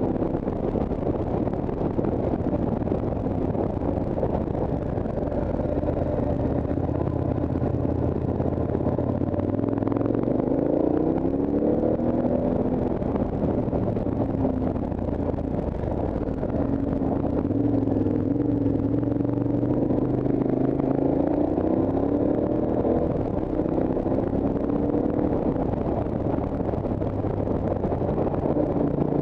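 Motorcycle engine running as the bike climbs a mountain road, its pitch rising and falling with throttle and gear changes, over steady rushing noise.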